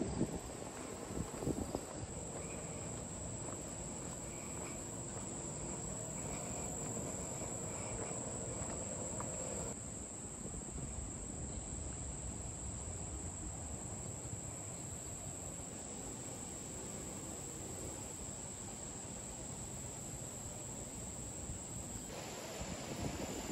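Insects such as crickets chirring steadily in a high-pitched drone, over a low rumble on the microphone, with a couple of bumps about a second in.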